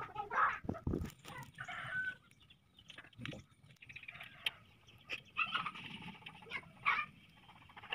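Chickens clucking in short, scattered calls, with a few sharp knocks in between.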